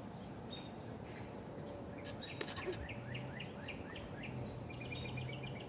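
Outdoor yard ambience with a bird repeating short chirps, about four a second, starting about two seconds in, then a quicker trill near the end. A few sharp clicks come just as the chirping starts.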